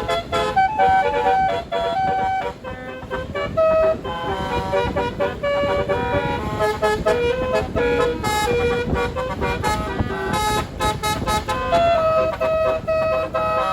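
Tour bus's Basuri telolet horn, a bank of air-horn trumpets, playing a tune of short notes, each stepping straight into the next.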